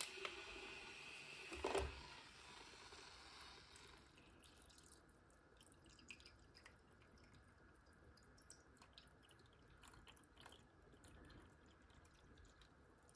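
Faint hot water poured in a thin stream from a gooseneck kettle into a ceramic mug over a tea bag, with small trickling and dripping sounds. A soft hiss runs through the first few seconds, and there is a single knock near two seconds in.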